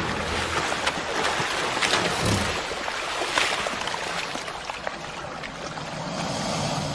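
Water splashing and churning as a group of Nile crocodiles thrash and twist while feeding on a hippo carcass in a river. There are many sharp splashes, and they gradually ease toward the end.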